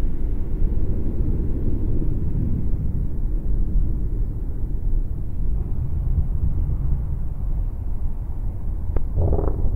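A loud, steady low rumble with no clear pitch. Near the end a few short, higher tones and clicks come in over it.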